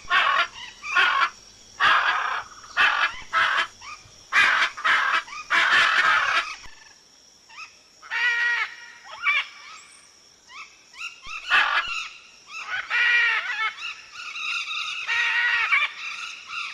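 Macaws screeching: a run of loud, harsh squawks for the first several seconds, then after a short lull a series of shorter calls that rise and fall in pitch.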